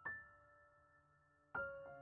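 Quiet, slow piano background music: a note struck at the start fades away, then a new chord sounds about one and a half seconds in.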